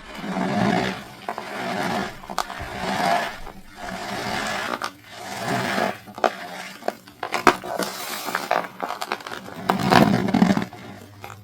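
Dried cornstarch bricks being crushed, a run of crunching swells about a second each, with sharp crackling snaps in the second half.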